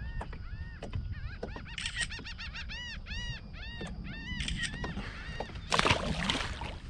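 Birds feeding over a school of redfish, calling in quick repeated notes that each rise and fall in pitch. Near the end comes a loud rush of noise lasting under a second.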